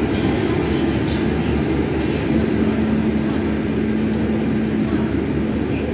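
Express train hauled by a WAP-5 electric locomotive rolling past along the platform, a steady low rumble of locomotive and coaches on the track. A steady hum joins in about two seconds in and fades out near five seconds.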